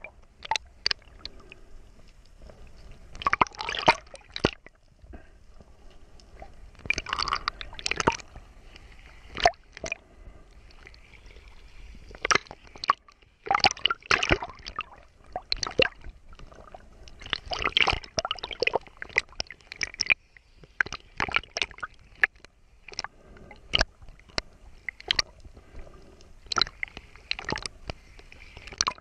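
Sea water sloshing, gurgling and splashing around a GoPro Hero4 Session camera bobbing at the surface, in uneven bursts every second or two.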